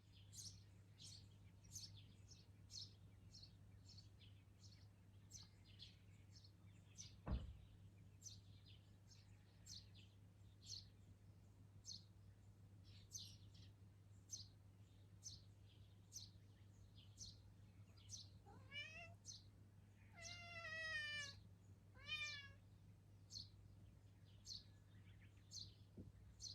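Faint, high bird chirps repeat about once a second. About two-thirds of the way in, a cat meows three times in quick succession with a wavering pitch, and a single soft knock comes near the quarter mark.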